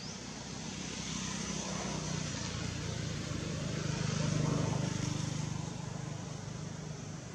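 A passing engine: a steady low hum with a broad rush above it, growing louder to its peak about four and a half seconds in, then fading away.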